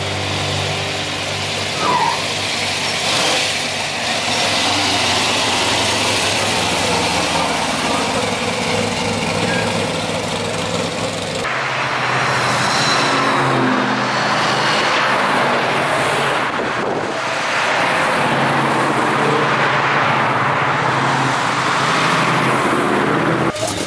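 Classic muscle cars' engines running at low speed: first one car's steady, low engine note as it creeps forward, then, after an abrupt change about halfway through, several cars driving past one after another, each swelling and fading with engine and tyre noise.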